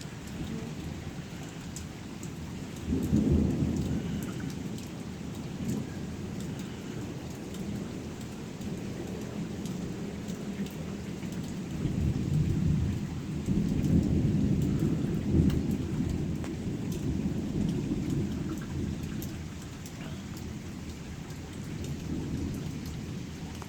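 Thunderstorm: steady rain with rolls of thunder, one rumble about three seconds in, a longer one building from about twelve seconds and rolling on for several seconds, and a fainter one near the end.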